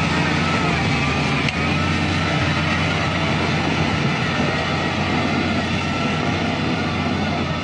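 A LiuGong 856H wheel loader's diesel engine running steadily under load as the machine drives, with a thin high whine over it for the first two seconds or so.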